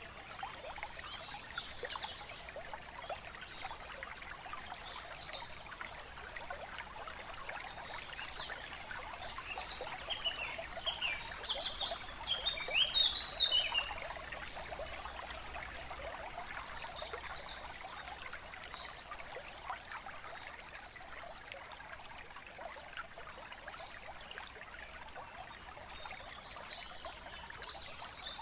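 Steady trickling of a small stream, with birds chirping over it, the chirps thickest and loudest about halfway through.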